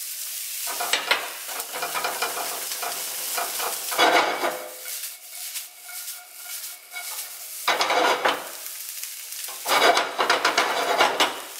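Cauliflower rice with peas and egg sizzling in a nonstick skillet, stirred and scraped with a spatula in several louder bursts over a steady frying hiss.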